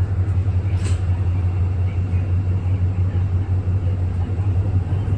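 City bus making a strange noise: a loud, steady low drone, with one short sharp sound about a second in.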